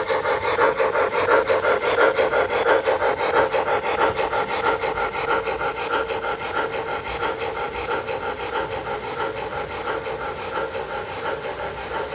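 Model Union Pacific 844 steam locomotive's sound system giving an even, rapid chuff, several beats a second, over the hum of its wheels and motor on the track. It fades steadily as the engine runs away.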